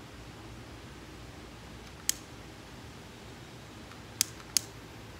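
A cigar lighter clicking as it is fired to light a cigar: one sharp click about two seconds in, then two more close together near the end, over a faint steady background noise.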